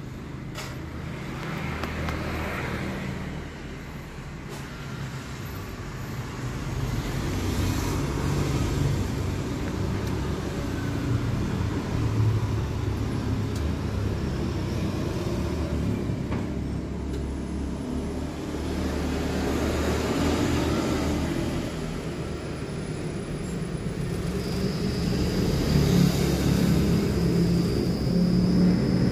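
Stainless-steel double-cone coffee powder mixer running: its electric motor and drive hum steadily as the cone turns, growing a little louder. A thin high whine joins near the end.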